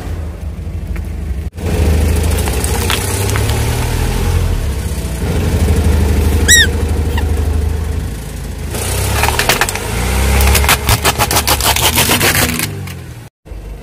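Car engine running low as a tyre rolls slowly over toy reptiles on asphalt. A short squeak sounds about halfway through as the toys are squashed, and later a rapid run of sharp cracks and snaps as the plastic breaks apart under the tyre.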